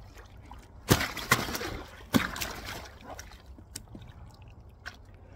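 Large mirror carp thrashing in shallow water while held, sending up a few sharp splashes in the first half, then quieter sloshing.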